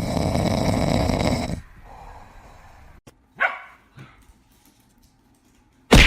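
A dog growling for about a second and a half, then a single short call about three and a half seconds in.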